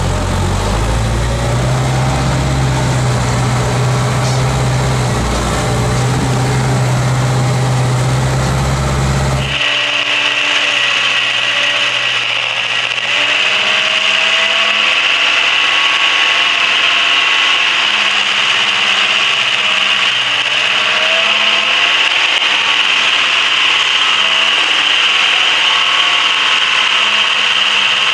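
Unimog diesel engine running steadily, heard from the cab. About ten seconds in the sound switches abruptly to a harsh, steady rasping rush with a high whine, heard from under the chassis as the truck rolls over a gravel and dirt track.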